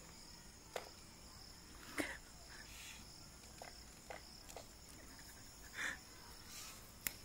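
Crickets chirping steadily, with scattered faint clicks and scrapes from a puppy gnawing and pawing at a wooden stick on a doormat, and one short louder scuffle or sniff near the end.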